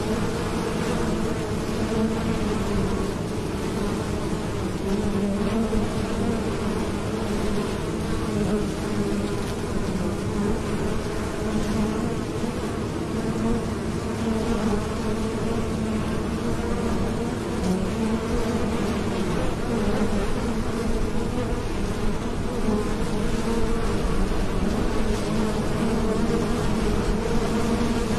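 Many honeybees flying in and out of a hive entrance, their wings making a steady, continuous buzzing hum.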